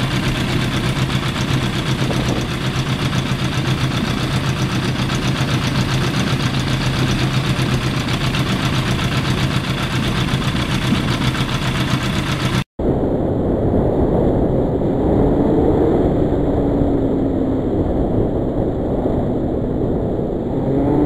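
1991 Yamaha FZR1000's inline-four engine idling steadily, heard close to the bike. About two-thirds of the way through it cuts to riding, where wind noise mixes with the engine, its pitch rising and falling with the throttle.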